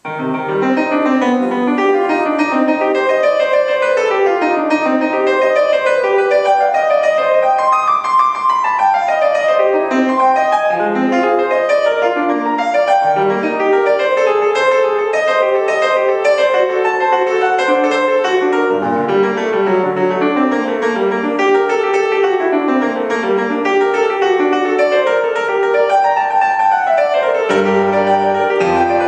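Solo piano playing a classical piece in fast running notes, with quick arpeggio-like runs sweeping up and down the keyboard; the playing starts suddenly at the opening.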